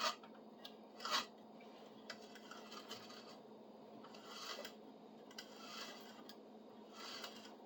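Old auger-style drill bit in a wooden T-handle, turned by hand to bore into a spruce 1x2: faint rasping scrapes of the bit cutting wood, coming in strokes about once every second and a half, with a couple of short knocks near the start.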